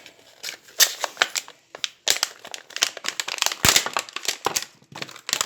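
Plastic being handled at close range: irregular clicks, rattles and crinkling, thickest in the middle.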